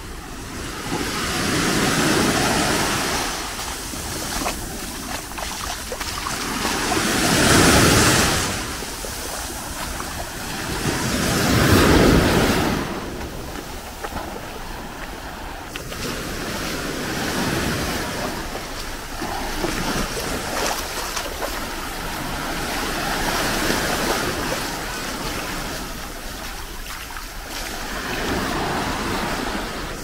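Small sea waves breaking on a sand-and-rock shore and washing up the beach, swelling and fading every few seconds. The two loudest come about 8 and 12 seconds in, the second as a wave splashes against a rock, and the waves after them are gentler.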